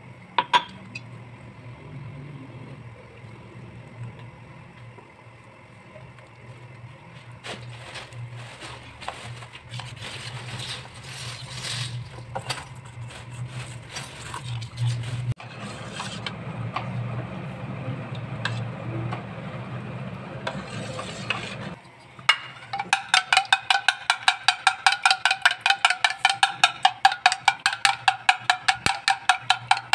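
A metal spoon stirring and scraping a flour-and-egg batter in a steel bowl, over a steady low hum. For the last third, a spoon beating eggs in a ceramic bowl: fast, even, ringing clinks, about five a second, the loudest sound.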